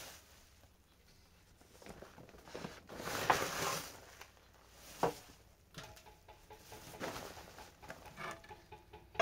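A steel shovel and a pickaxe being picked up and handled on a bare concrete floor. There is a scrape lasting about a second, then a sharp knock, then lighter knocks and clatter.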